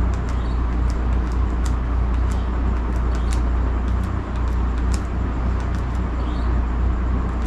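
Remote-control buttons clicking as a Wi-Fi password is keyed in: short, irregular clicks, roughly two a second, over a steady low hum.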